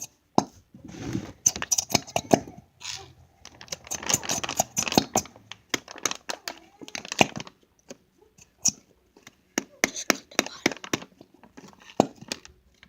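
Crinkling and crackling with many sharp clicks, in short irregular bursts, as plastic is handled and squeezed.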